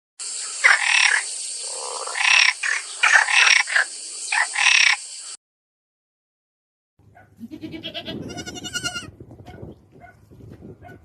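Two animal-call clips in a row: first a run of about six short calls over a steady high hiss, which stops abruptly about five seconds in; after a short silence, a different animal calling, with one longer pitched call near the end.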